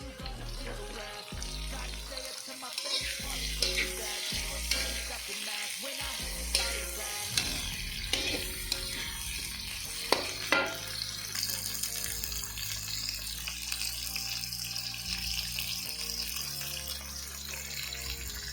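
Tauco stir-fry sizzling in a pan while being stirred, with a few sharp knocks of the spatula against the pan. The sizzle grows into a steady hiss about seven seconds in. Background music with a steady bass beat plays under it at the start.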